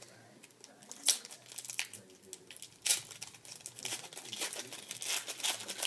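A trading-card pack wrapper being torn open and crinkled, with sharp crackles about 1 and 3 seconds in and steadier crinkling near the end.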